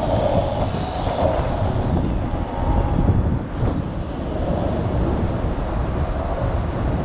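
Steady rumble of a moving car, road and engine noise, with no sharp events.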